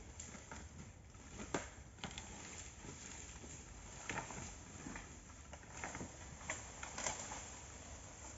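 Faint, irregular snaps, cracks and rustles of dry bamboo litter and twigs as someone moves and works in the undergrowth.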